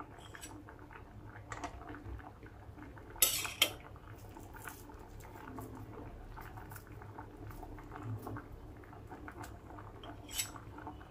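Kitchen utensil knocking and scraping lightly against a cooking pan, with two louder quick knocks a little over three seconds in and another near the end, over a low steady background.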